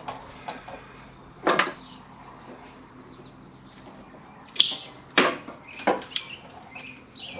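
A handful of separate knocks and clatters from parts and tools being handled while working on a lawn tractor's mower deck: one about a second and a half in, then a quicker run of four in the second half, the sharpest just after halfway.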